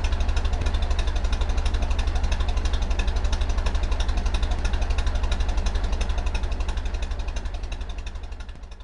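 Ford Model T's four-cylinder flathead engine idling with a rapid, very even pulse of firing strokes, fading out near the end.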